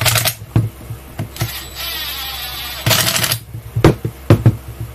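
Cordless impact driver running in several short bursts, driving screws into a plastic battery-pack case to close it up. A few sharp knocks come near the end.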